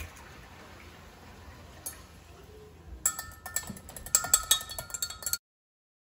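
A metal fork clinking rapidly against a glass measuring cup as eggs are beaten, starting about halfway through and cutting off abruptly. Before it, only faint room hiss.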